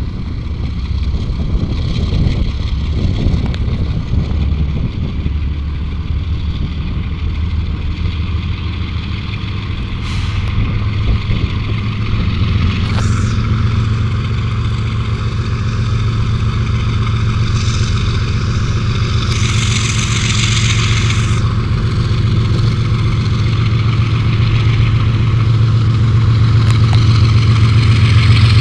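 Diesel engine of a TE33AC freight locomotive running. Its low steady hum swells and grows louder from about halfway through as the engine takes up load for departure, and a hiss lasting about two seconds comes near two-thirds of the way in.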